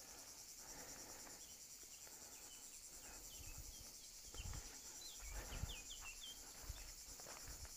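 Faint, steady high-pitched insect chirring with a fine pulse, joined by a few short bird chirps between about three and six seconds in and some soft low thumps.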